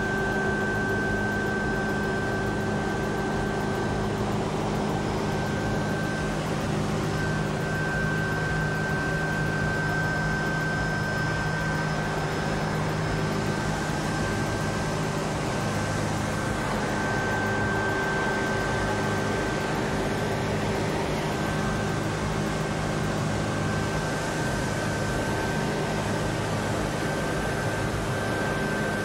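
Steady mechanical drone with several constant humming tones and a thin high whine, unchanging throughout.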